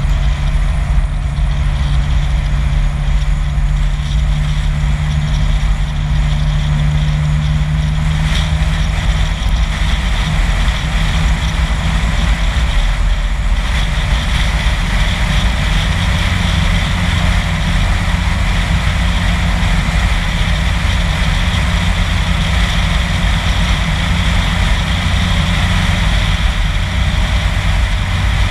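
A car driving at road speed: a steady engine hum over continuous tyre and road noise. The engine note shifts lower about a third of the way in, and the road noise grows a little brighter.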